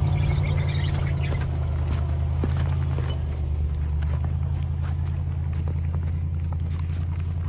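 2012 Range Rover's V8 engine running at low revs as the SUV crawls away over snow, a steady low exhaust drone that grows slightly fainter. Light crunches of snow come through now and then.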